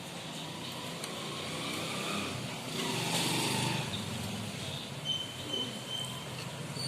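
A motor vehicle's engine running and passing by, swelling about three seconds in.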